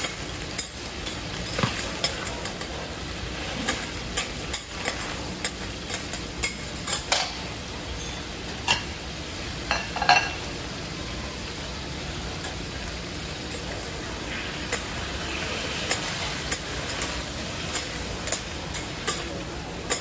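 Vegetables sizzling on a hot steel teppanyaki griddle while two metal spatulas toss and scrape them, making irregular sharp clicks and scrapes against the steel.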